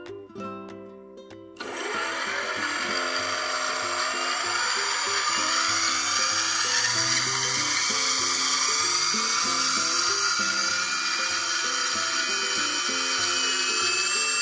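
Brushless outrunner motor of an RC plane spinning with no propeller fitted: a loud, steady high whir with slowly shifting tones that starts abruptly about a second and a half in, heard over background music.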